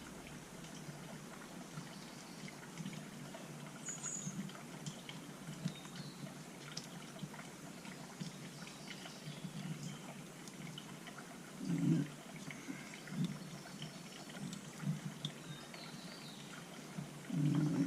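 Faint, scattered clicks and light taps of small carburetor parts and hand tools being handled, with a couple of short dull knocks about two-thirds of the way in and near the end.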